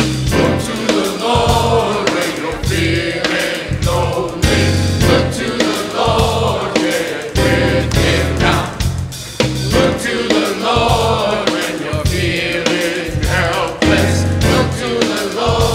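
A choir of young voices singing a gospel song over a band with a heavy bass line and a steady beat.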